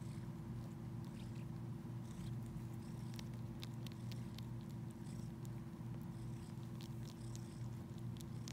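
Domestic cat purring steadily, a low, fast pulsing hum, while it suckles the fur of a shaggy rug, with scattered small clicks from its mouth working the fur.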